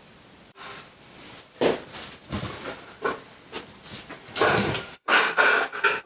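Sheet steel being worked on a bending brake, a series of irregular scrapes, knocks and metallic handling noises, with two brief dropouts.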